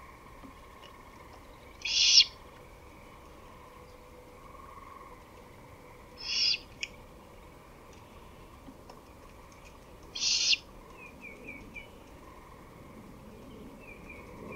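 Great horned owl giving three short, harsh, raspy screeches, about four seconds apart.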